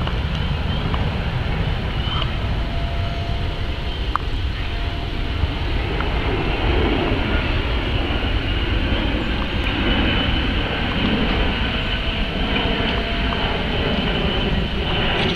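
Boeing 767-200ER jet airliner passing overhead: the steady low rumble and hiss of its twin turbofan engines, with a faint high whine.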